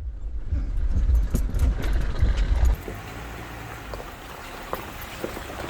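A vehicle driving on a trail: a low rumble that is loudest for the first three seconds or so, then drops to a quieter steady noise, with small rattles and clicks throughout.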